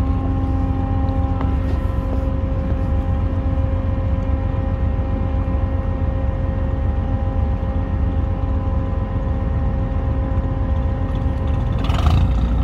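Steady hum of engines and machinery running, with a constant low rumble and several unchanging tones, and a brief rush of noise near the end.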